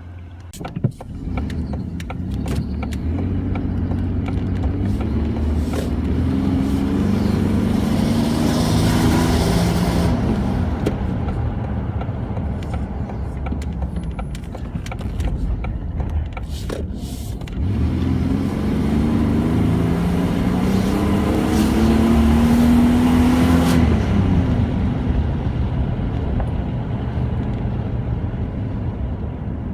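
Ford Explorer Sport Trac's engine running, revved up twice for several seconds each, the pitch climbing and then falling back, about five seconds in and again about eighteen seconds in. A few clicks come near the start.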